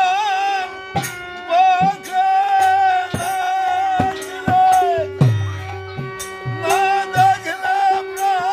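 Instrumental interlude of Bengali devotional folk music: a wavering melodic lead over a held drone, with hand-drum strokes and sharp metallic strikes keeping the rhythm.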